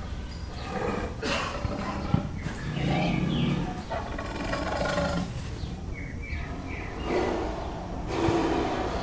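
Zoo ambience: a large animal calling with a deep, drawn-out sound about three seconds in, over a steady low rumble, with short bird chirps here and there.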